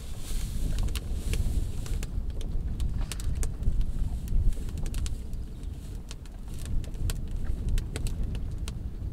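Dry grass and straw burning in a clay mud stove, crackling with many sharp pops. A steady low rumble runs underneath.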